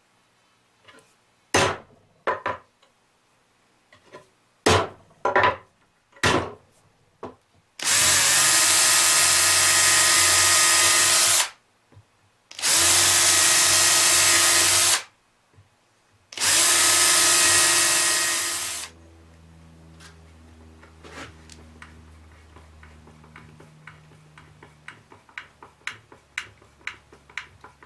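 Several sharp taps, then a yellow right-angle power drill running at full speed in three bursts of about three seconds each, drilling small holes for hinge screws. After that the drill runs slowly, its pitch stepping up and down, with a run of small clicks as a screw is driven through a steel hinge plate.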